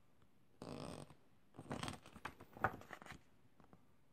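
A thin paper booklet's pages being handled and turned: a short rustle about half a second in, then a few faint rustles and small taps.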